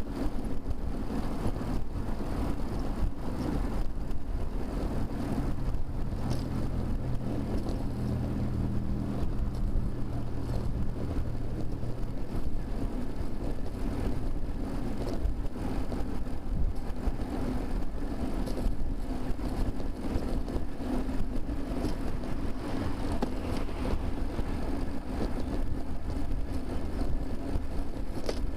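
Steady road and wind rumble on a bicycle-mounted camera riding in traffic, with small rattling knocks throughout. A motor vehicle's low engine hum comes in about five seconds in and fades by about twelve seconds.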